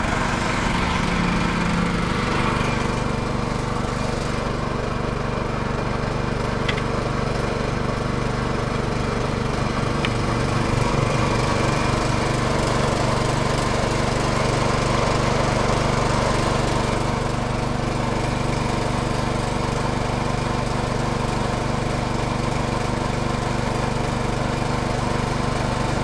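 Small engine running steadily at a constant speed.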